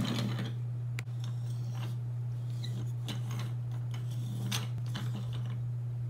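Pink Zoomer Zuppies robotic toy puppy moving and being handled: several short mechanical whirs and plastic scrapes of about half a second each, with a single click about a second in, over a steady low hum.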